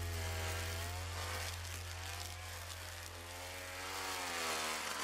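Oleo-Mac petrol brushcutter running and cutting tough grass with a 3 mm helical nylon line, the engine pitch rising and falling every second or two as it works.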